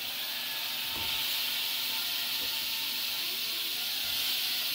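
Chicken, onion and chopped tomato sizzling in a hot wok with a steady hiss that gets a little louder about a second in.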